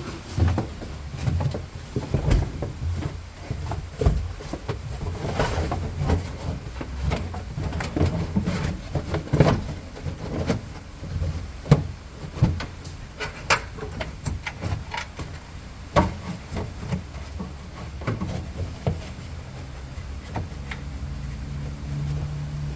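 A carpeted trim panel being worked into a car boot's side: repeated knocks, taps and rustles as it is pushed and pressed into place against the body.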